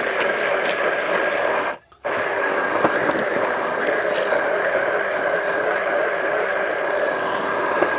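Immersion blender running steadily in a pitcher of vinaigrette, a whining motor hum, cutting out briefly about two seconds in.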